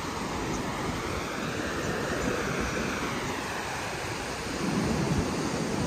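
Sea surf breaking and washing onto a sandy beach, one wash swelling and fading in the first few seconds, with wind rumbling on the microphone that grows near the end.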